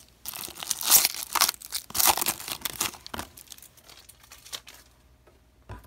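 Foil wrapper of a Leaf Draft football card pack being torn open and crinkled by hand: a dense crackling rustle for about three seconds, then only faint handling noise and a soft knock near the end.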